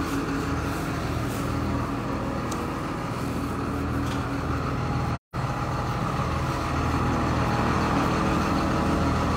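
Heavy diesel engine running steadily at idle beside the lowboy trailer carrying a tracked excavator. The sound cuts out completely for a moment about five seconds in.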